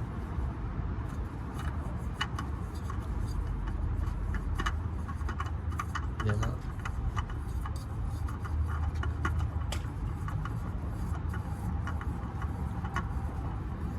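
An oil filter being threaded onto the engine by hand, with scattered small clicks and scrapes of metal and rubber as it is worked to catch the threads, over a steady low rumble.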